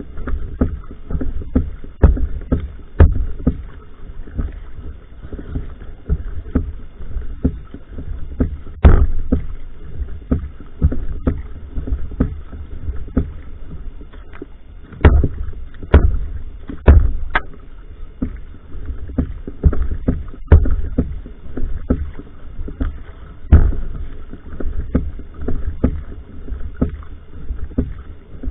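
Single-blade paddle strokes of a va'a (outrigger canoe) driven at sprint pace: a quick, uneven run of splashes and knocks, a few of them much louder, over a steady low rumble of water and wind on the boat.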